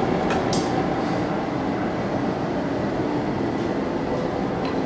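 Forge running with a steady rushing noise, with a couple of faint metallic ticks about half a second in.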